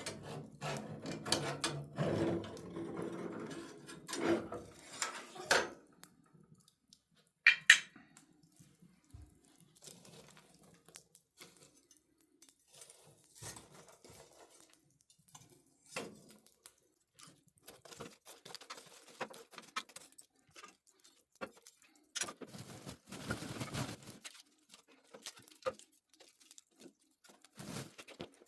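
Metal clattering and knocking as the rotisserie spit and its fittings are handled for the first few seconds, with one sharp click a little later. Then sparse, irregular clicks and small pops, like a wood fire crackling in the fireplace.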